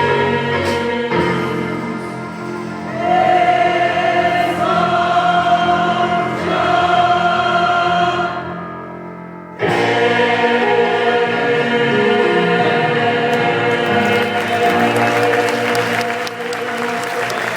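Church choir singing a gospel cantata arrangement with keyboard accompaniment, in full sustained chords. About eight seconds in the sound fades away briefly, then the full choir and keyboard come back in loudly all at once and hold to the end.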